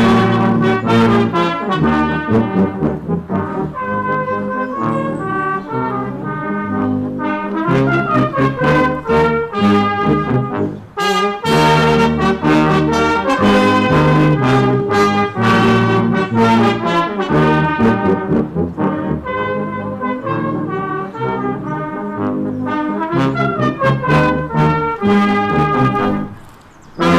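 Brass band music: several brass instruments playing held chords together, with short breaks between phrases about eleven seconds in and again near the end.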